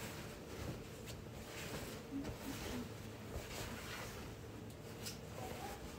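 Faint rustling of skirt fabric being handled by hand, with a few soft ticks, over a low steady room hum.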